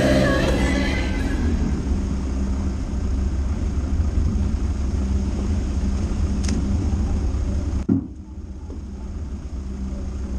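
Dacia Duster driving: a steady low engine and road rumble with a constant hum, and the higher hiss dropping away abruptly about eight seconds in.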